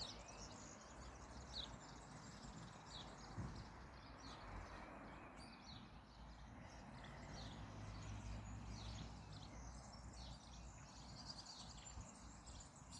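Faint, steady hiss of rain, with birds giving short, high, falling chirps every second or so.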